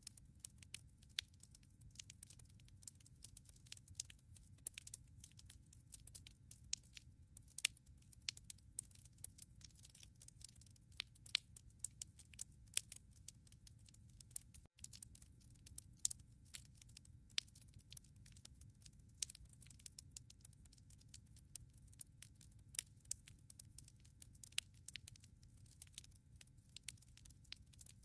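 Wood fire burning in a fireplace, crackling with irregular sharp pops and snaps over a soft low rumble of the flames.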